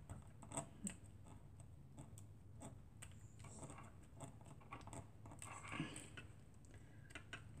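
Faint, scattered light clicks and taps of a pick-up tool's tip lifting self-adhesive half pearls off their backing sheet.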